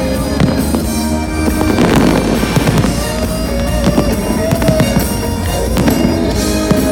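Fireworks bursting and crackling in quick succession over a music soundtrack.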